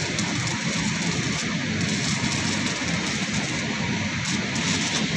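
Stick (arc) welding with a 3 mm 6013 rod on a galvanized iron pipe: the arc keeps up a steady crackle as the bead is run around the joint.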